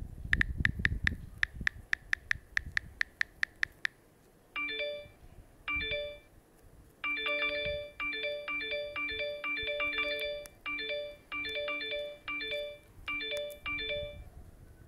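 Custom keyboard theme's key-press sound effects: quick tapping clicks for the first few seconds, then each key press plays a short electronic beep, repeated in quick irregular runs.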